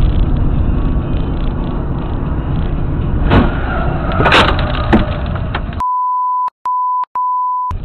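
Steady road and engine noise heard from inside a moving car, then a crash ahead: a bang about three seconds in and a louder clattering impact a second later. For the last two seconds a steady high censor beep, broken twice, replaces the car sound.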